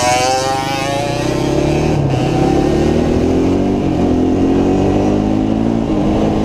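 Motorcycle engine running under way, its pitch falling over the first couple of seconds and then climbing slowly as it picks up speed.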